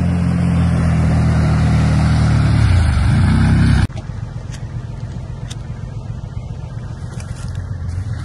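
CFMOTO ZFORCE 1000 side-by-side buggy's V-twin engine running under load through mud, its pitch dipping and then rising again about three seconds in. The sound cuts off abruptly just before four seconds, leaving a quieter low rumble.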